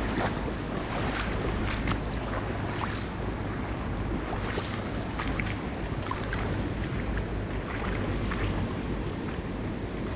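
Shallow river riffle rushing over stones, a steady wash of water with small splashes and trickles throughout, over a low wind rumble on the microphone.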